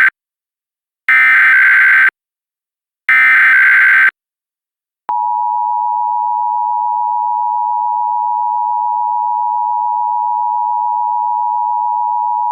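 Emergency Alert System tones. The last moment of one SAME data-header burst is followed by two more one-second bursts of harsh, buzzing digital data tones, a second apart. About five seconds in, the steady two-tone EAS attention signal begins and holds, a little quieter than the bursts.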